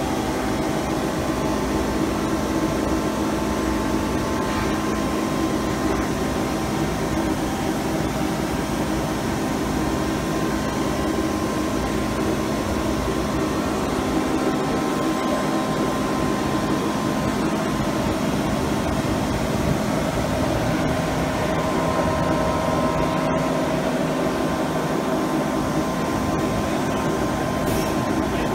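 Fanuc Robodrill T21iDL CNC drilling and milling centre running under power: a steady mechanical hum with several constant tones.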